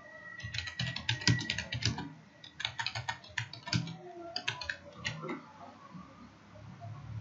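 Computer keyboard being typed on: quick runs of keystrokes in a few bursts, stopping about five seconds in.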